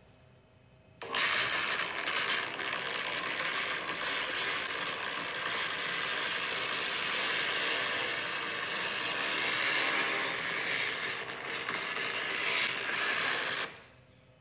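An iPhone 11 speaker playing back a recording drowned out by an audio recorder jammer: a loud, harsh, scratchy hiss that starts about a second in and cuts off abruptly near the end. No speech can be made out through it, which is the sign that the jammer blocked the phone's recording.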